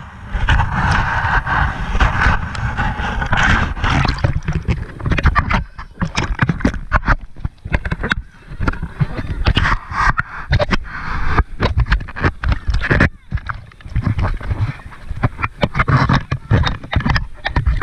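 Seawater splashing and sloshing right against a waterproof action camera as it is dipped in and out of shallow water, with many quick, irregular knocks of water hitting the camera.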